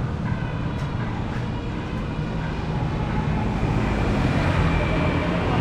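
Steady low rumble of a vehicle, with a general noisy haze above it.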